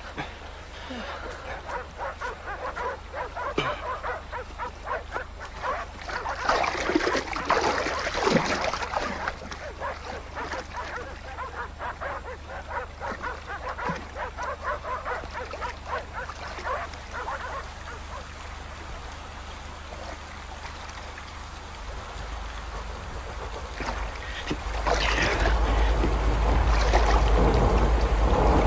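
Dogs barking repeatedly, with a low rumble swelling near the end.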